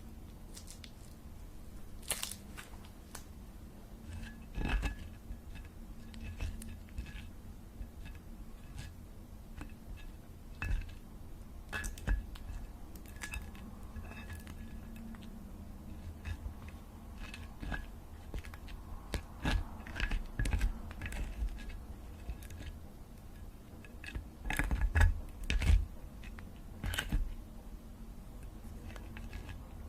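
Irregular close-up clicks, snips and light crunches from small objects being handled or cut, with a few louder clusters of knocks.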